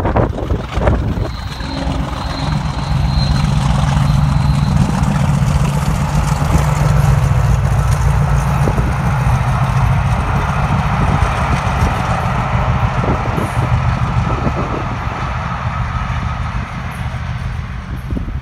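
Class 50 diesel locomotives' English Electric 16-cylinder engines passing with a train: a steady low engine drone, with a high whistle that fades out after a few seconds. Wind buffets the microphone briefly at the start.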